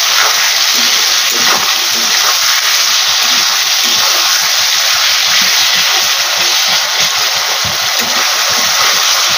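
Sliced potatoes, tomatoes and onions sizzling steadily in hot oil in a kadai, stirred with a metal spatula that scrapes and lightly knocks against the pan.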